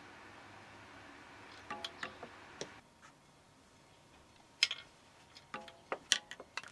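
Light clicks and taps from a small handmade ball-and-trampoline automaton as it is handled, some with a brief ringing tone. A few come about two seconds in, and a quick irregular run near the end fits the small ball dropping and bouncing on the toy trampoline.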